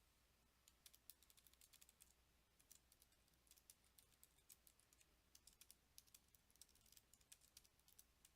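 Faint typing on a computer keyboard: quick, irregular keystrokes with short pauses between runs.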